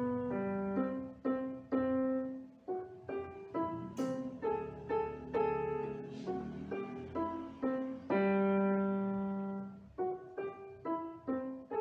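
Portable electronic keyboard on a piano sound, played with both hands: a simple beginner's piece, note by note, each note dying away. About eight seconds in, a low note is held for two seconds, then there is a brief gap before the notes resume.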